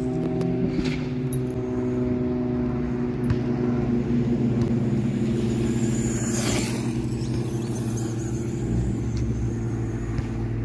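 A steady low mechanical hum, like an engine running at a constant speed, with a brief whoosh about six and a half seconds in.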